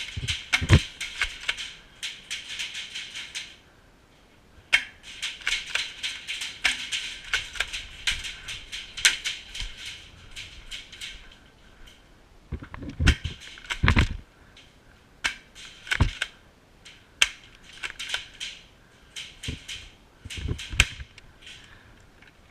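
Airsoft guns firing: many sharp pops in irregular runs, with a few heavier knocks in the second half.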